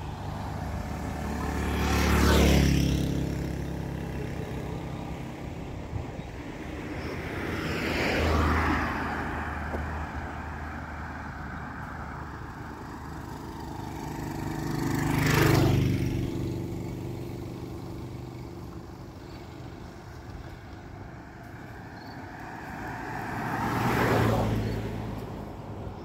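Road vehicles driving past one at a time: four passes, each swelling to a peak and fading away, including a motorcycle about halfway through.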